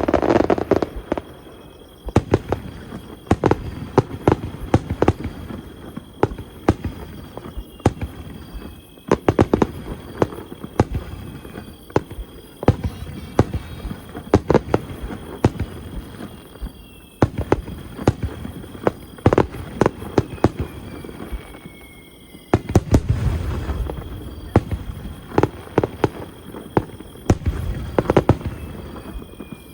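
Aerial fireworks bursting: a continuous run of sharp bangs and crackles, with heavier deep booms near the start, about two-thirds of the way through, and again near the end.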